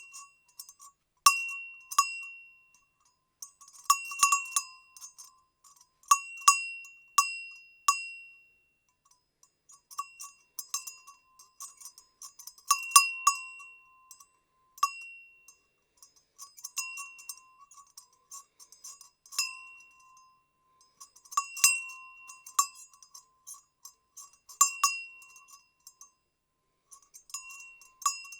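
Goat bell clanking irregularly in small clusters of strikes, each strike leaving a brief ringing note.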